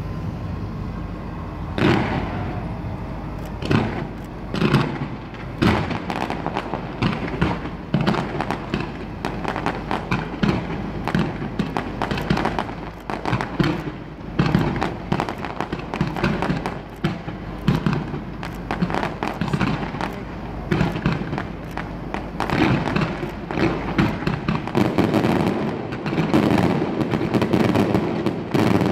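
Fireworks display: a rapid series of sharp bangs starting about two seconds in, thickening into a dense run of cracks near the end.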